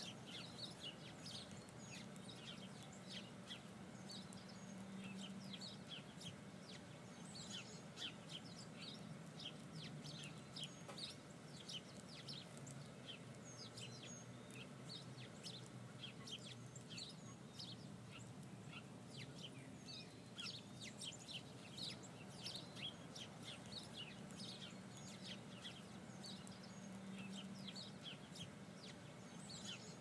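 Faint outdoor ambience: birds chirping in short, scattered calls over a low steady hum.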